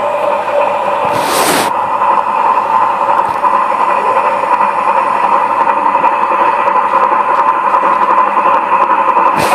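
Steam locomotive sound effect: a steady, loud hum from the engine with a short sharp hiss of steam about a second in and another right at the end.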